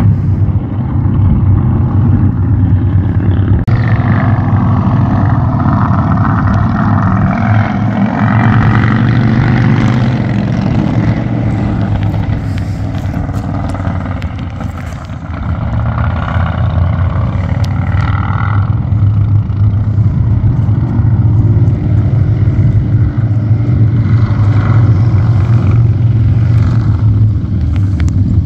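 Motor vehicle engine and road noise: a steady low engine drone, with louder rushes of passing traffic a few seconds in and again just past the middle.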